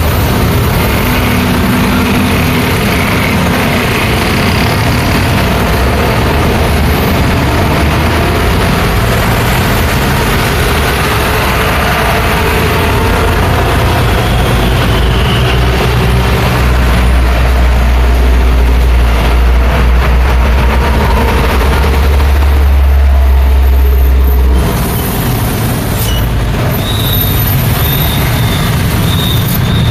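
Busy road traffic passing close by: a steady wash of engines and tyres. From about halfway, a large vehicle's low engine drone builds, is loudest around three-quarters of the way through, then stops abruptly.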